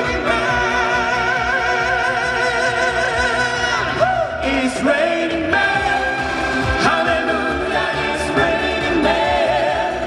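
Live amplified performance: a male singer sings held notes with vibrato over a full backing accompaniment, with a violin playing along.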